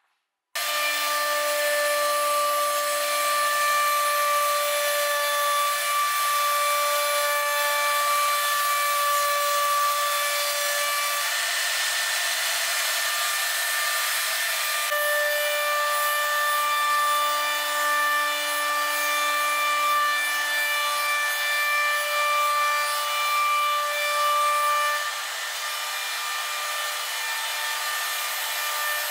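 Router spindle of a Lee Hyun multi-wood machine cutting a moulding profile along the edge of a long wooden board: a steady high whine over the rushing noise of the cut. The whine fades for a few seconds in the middle while the cutting noise carries on, and the sound drops a little near the end.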